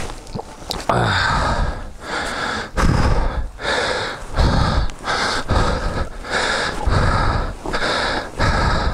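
A rider breathing hard and fast after struggling with a dirt bike stuck on a muddy bank: loud gasping breaths close to the microphone, about one and a half a second.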